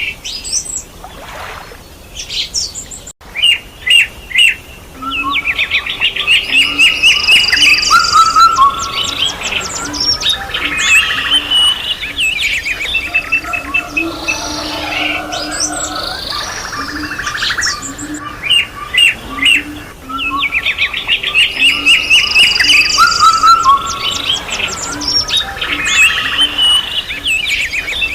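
A chorus of several songbirds chirping, whistling and trilling together. It is sparse for the first few seconds and becomes a dense, overlapping chorus about five seconds in.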